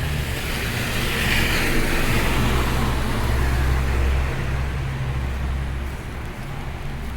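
Street traffic in a snowstorm: a steady low engine rumble, with a vehicle passing by, its tyre hiss swelling and then fading over the first few seconds.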